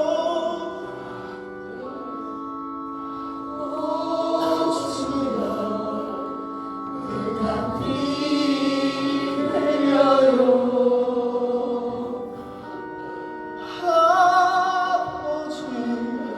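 Slow, sustained sung music from a live stage musical: voices with vibrato sing a gospel-style song over held accompaniment chords. The chords change about two seconds in and again near the end.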